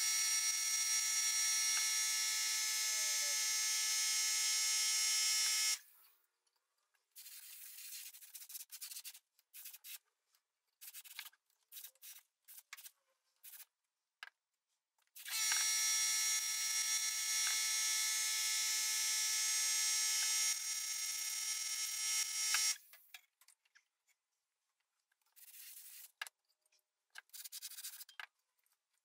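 Gravity-feed spray gun spraying paint: two long spells of steady air hiss with a whistling note in it, the first about six seconds long, the second about seven seconds starting about halfway through. Between and after them, only brief scattered handling noises.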